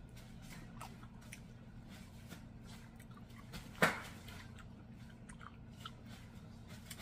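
Close-miked mouth chewing a seared king trumpet mushroom slice: soft wet clicks and smacks, with one louder sharp smack about four seconds in.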